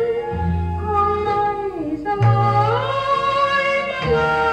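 Thai vocal song playing from a vinyl record on a turntable: a woman singing long held notes that slide down and back up midway, over a band with a bass line.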